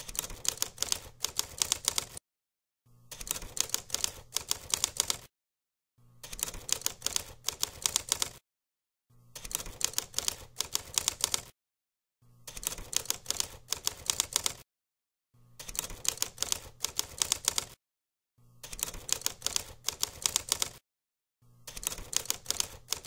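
Typewriter sound effect: bursts of rapid clattering keystrokes, each about two and a half seconds long, separated by short silent gaps and repeating evenly about every three seconds.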